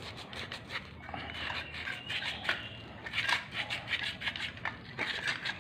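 Sandpaper rubbing back and forth on an angle grinder's blackened armature in short, irregular scratchy strokes, cleaning it during servicing.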